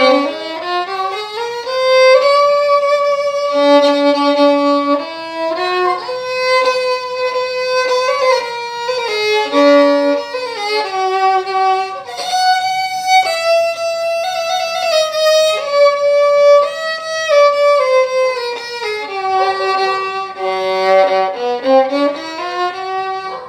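Solo violin played with the bow: a slow melody of held notes, often two strings sounding together, with sliding pitches at the start and again near the end. The playing breaks off at the very end.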